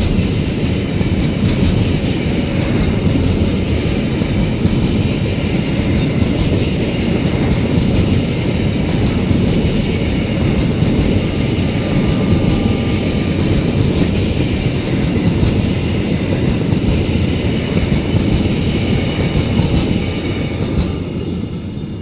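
Long freight train of open-top wagons rolling past close by: a steady, loud rumble and clatter of wheels on the rails. It starts to fade near the end as the last wagon goes by.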